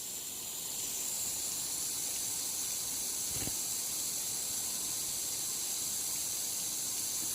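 Steady hiss of water spraying during a pet lorikeets' shower, with one soft thump a little past the middle.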